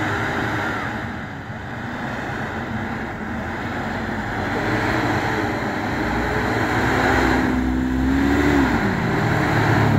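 Vehicle engines in snow: the stuck school bus running with its tires spinning, and an ATV's engine growing louder as it drives up close, its note holding and then dropping near the end.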